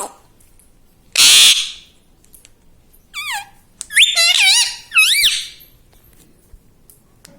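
Ring-necked parakeet calling: one harsh screech about a second in, then three whistled calls that sweep up and down in pitch, from about three seconds in.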